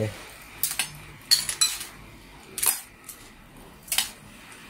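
Kitchen shears snipping the pointed tips off small mangrove snail shells over a stainless steel bowl. A handful of sharp clicks and crunches come about a second apart, with shells clinking against the metal.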